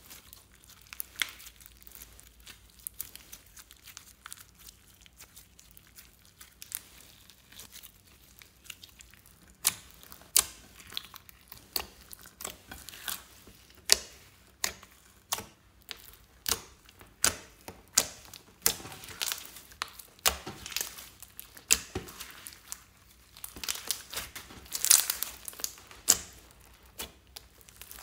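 Hands kneading and squeezing clear slime loaded with glitter and sequins, making sticky clicks and pops; from about ten seconds in they come faster and louder.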